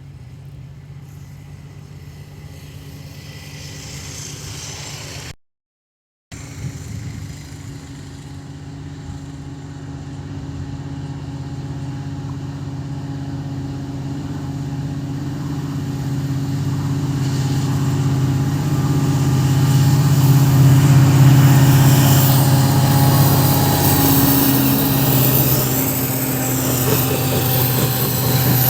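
Diesel locomotive engine humming steadily, growing louder as the train approaches, with a brief dropout about five seconds in.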